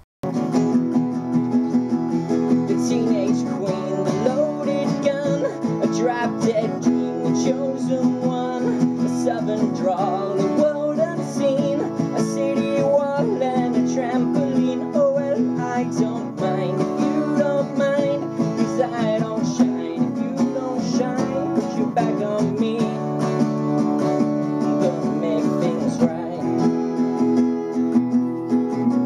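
Two acoustic guitars strummed while a man sings: a live acoustic cover song.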